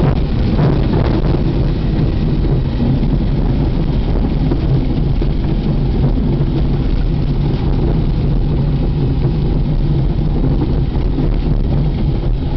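Luscombe 8E's Continental C-85 four-cylinder engine running steadily at low power, heard inside the cockpit, during the landing rollout on a grass runway.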